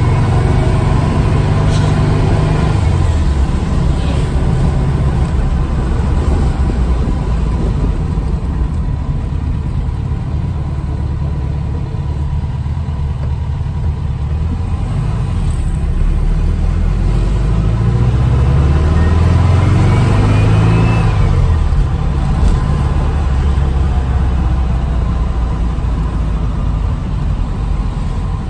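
Air-cooled flat-four engine of a classic VW Beetle running under way, heard from inside the cabin along with road noise; about two-thirds of the way through, the engine note rises as the car accelerates, then eases off. The car is on a test drive after adjustments to its 34 PICT carburetor.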